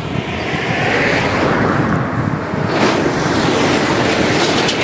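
A pickup truck towing a trailer approaching along the lane: a steady rush of engine and tyre noise, with light rattling near the end.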